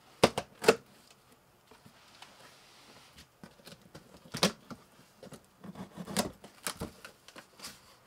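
Large cardboard box holding a computer case being handled and opened by hand: a scatter of sharp knocks and taps on the cardboard, with a soft rustle about two seconds in.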